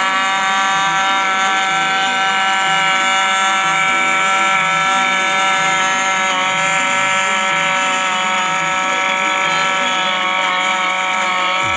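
Westpoint electric blender's motor running at full speed, grinding fresh coriander, green chillies and garlic with a little water into chutney: a loud, steady high whine.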